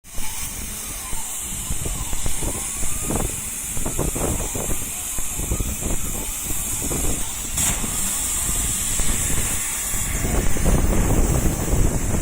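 1325 CNC laser cutting machine running: a steady high hiss over a low rumble, with irregular clatter that grows louder about ten seconds in.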